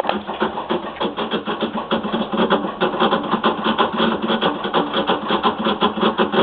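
Samsung washing machine making a loud, rapid rattling knock, several strikes a second over a steady low hum, then cutting off suddenly. It is an abnormal noise that this washer makes during some cycles and not others.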